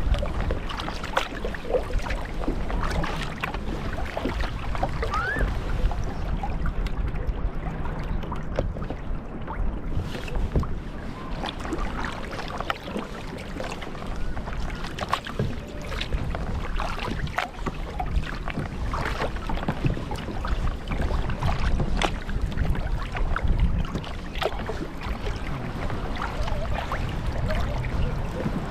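Double-bladed kayak paddle strokes: the blades dip and splash in the water in an irregular run of small splashes, with water lapping along the hull and wind rumbling on the microphone.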